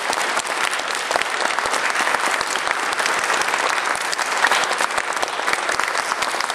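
Large audience applauding steadily, many hands clapping, in a reverberant cathedral.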